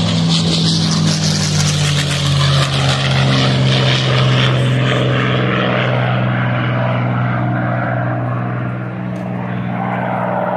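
Piston engine of a single-engine propeller warbird making a low pass: a loud, steady drone that drops in pitch about two seconds in as the plane goes by, then slowly fades as it flies off.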